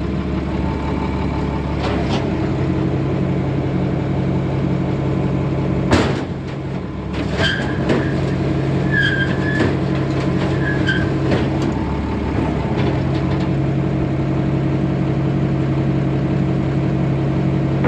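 Diesel tractor engine idling steadily, with a sharp metallic knock about two seconds in and a louder one about six seconds in, and a few short high chirps in the middle.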